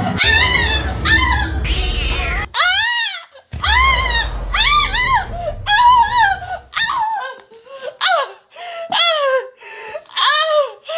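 Cat yowling and meowing over and over in short calls that each rise and fall, with a low rumbling underneath that stops about seven seconds in.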